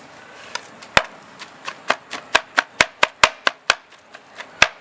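A large knife chopping a chicken and vegetable shawarma filling on a board, mincing it fine: a run of sharp, irregular knocks, about three a second, coming faster and harder from about a second in.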